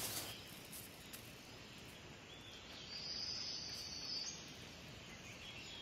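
Faint outdoor background hiss in open woodland, with a steady high-pitched trill for about a second, starting about three seconds in.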